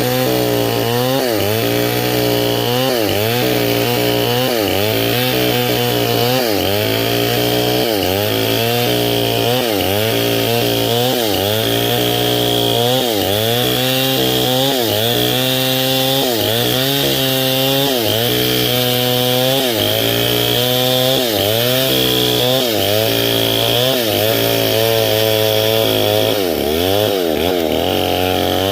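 Stihl 070 two-stroke chainsaw running at high revs while ripping lengthwise through a durian log. Its pitch dips and recovers about once a second as the cut loads it, with one deeper dip near the end.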